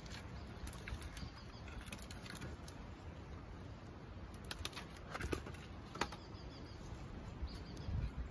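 Split firewood being stacked: scattered wooden knocks and clatter as pieces are set onto the pile, the loudest two about five and six seconds in, over a low steady rumble.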